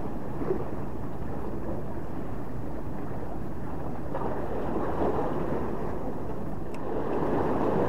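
Steady wind and sea noise: wind on the microphone and waves washing against the breakwater, swelling twice.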